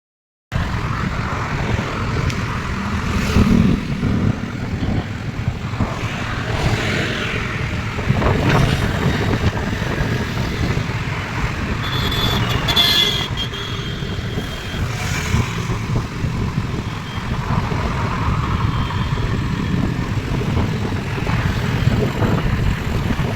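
Steady road traffic and vehicle engine noise, with a brief high-pitched horn about twelve seconds in.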